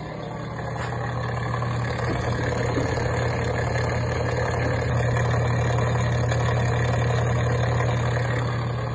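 LG washing machine's drain pump running with a loud steady hum and grinding noise while the tub fails to drain. The sound builds over the first couple of seconds and eases near the end. The technician traced it to a failed electromagnetic part of the drain pump, with the impeller intact and the filter clean.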